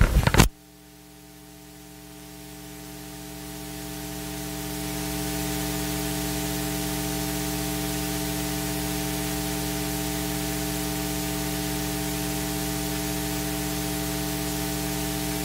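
Steady electrical hiss with a mains hum in the recording, growing louder over the first five seconds and then holding level; a brief loud sound cuts off about half a second in.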